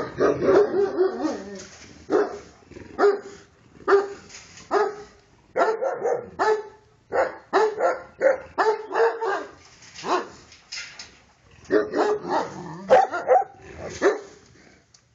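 Central Asian Shepherd dog barking repeatedly, in single barks and quick runs of two or three, about one to two a second, stopping shortly before the end.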